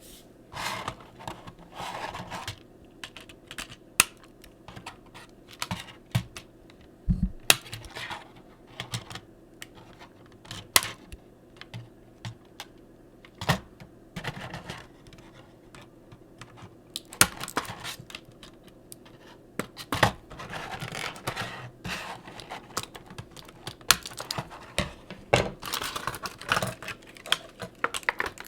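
Toy packaging being handled and opened: irregular clicks and taps of plastic with bursts of cardboard and plastic rustling.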